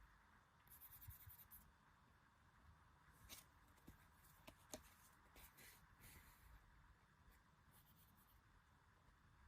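Near silence with faint rustling, scraping and a few light clicks of packaging and cards being handled, over a steady background hiss.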